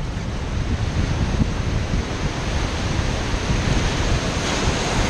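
Whitewater rapid on the Ganges rushing and splashing around a raft, with wind buffeting the microphone; a brighter hiss comes in near the end.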